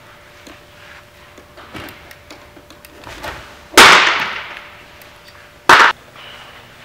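A thrown baseball smacks loudly into a catcher's mitt about four seconds in, the crack ringing on in a large indoor hall. A second, shorter sharp pop comes near the end and cuts off abruptly.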